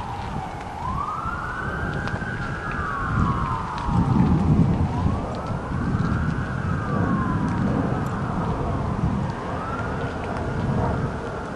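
Emergency vehicle siren in a slow wail, its pitch rising and falling in three long sweeps, over a steady low rumble.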